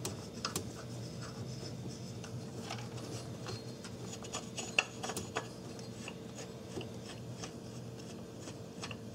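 Faint, scattered clicks and light scraping of hand work on a camshaft sprocket bolt as it is threaded in loosely by hand, with a few sharper ticks of metal on metal, over a steady low hum.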